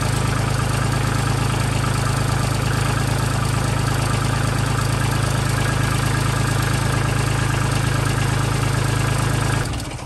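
Kubota tractor's diesel engine idling steadily, close up; the sound cuts off abruptly just before the end.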